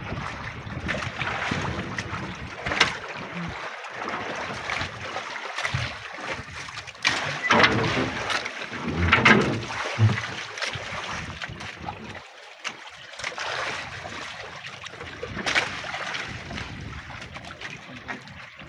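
Wind buffeting the microphone and sea water splashing and sloshing around a small outrigger fishing boat, with scattered knocks and louder splashes a little past the middle.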